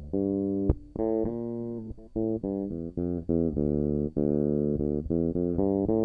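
Samick Fairlane electric bass, heard direct from the amp's DI output, playing a line of quick plucked notes, with a sharp click about two-thirds of a second in.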